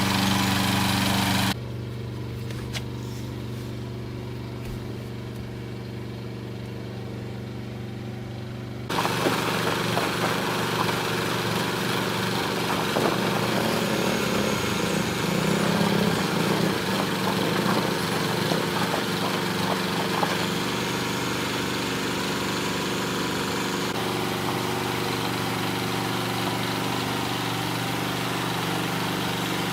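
An engine running steadily at a constant, idle-like speed. Its higher sounds drop away abruptly about a second and a half in and come back just as suddenly near nine seconds.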